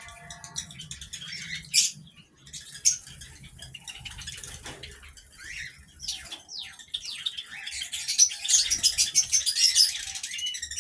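A flock of Java sparrows chirping in an aviary: many short, high chip notes overlapping, with wings fluttering. The chirping gets denser and louder near the end.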